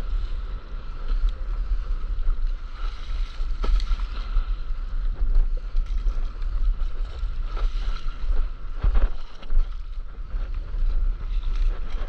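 Wind buffeting a board-mounted camera's microphone just above the water, with sea water sloshing and splashing against a paddleboard a few times.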